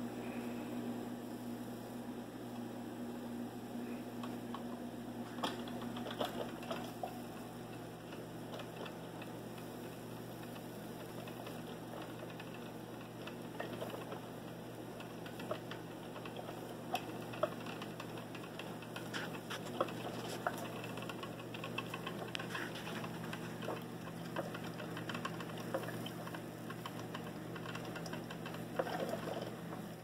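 Single-serve drip coffee maker brewing after being switched on: scattered small clicks and pops over a low steady hum, the clicks coming more often in the second half.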